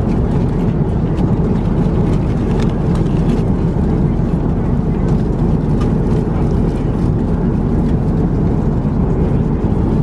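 Steady in-flight cabin noise of an Airbus A330-941 at cruise, a low, even rush from its Rolls-Royce Trent 7000 turbofans and the airflow. Faint crinkles of the foil meal lid being peeled back come through in the first few seconds.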